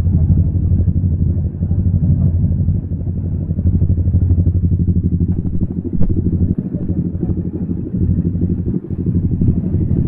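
Yamaha MT-07's parallel-twin engine running on the move, a dense, even pulsing exhaust note whose level dips briefly a few times as the throttle eases. There is a short sharp click about six seconds in.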